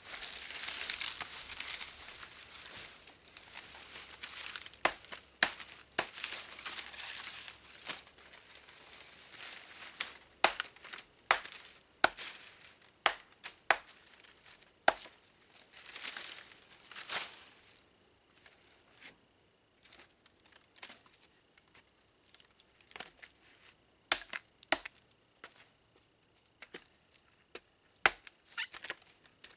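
Dry palm fronds crackling and tearing as they are gathered and shredded into fire kindling. The dense crinkling gives way about halfway through to sparser sharp snaps and knocks as a hatchet works the fronds against a log.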